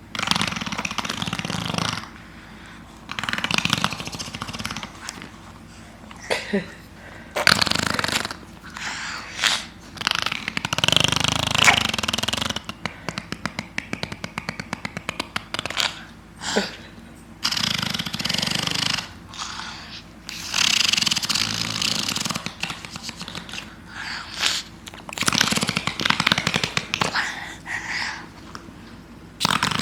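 A toddler making fart noises with the lips, blowing raspberries: repeated buzzy bursts of a second or two each, with short pauses between.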